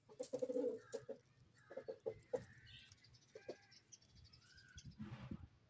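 Domestic chickens clucking in short clusters of low, quick notes, with a few higher chirps in between and a brief rustling noise near the end.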